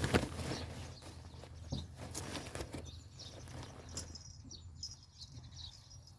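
Small birds chirping with short high calls over scattered light taps and scuffles, with a sharper knock right at the start.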